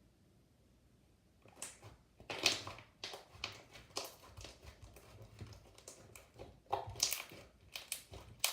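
Homemade slime mixed with letter beads and glitter, squished and pressed by hand close to the microphone: an irregular run of wet clicks and crackles that starts about a second and a half in.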